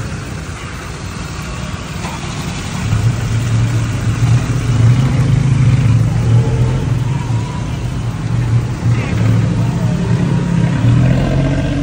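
A motor vehicle's engine running close by with a steady low hum, getting louder about three seconds in and holding there, over general street noise.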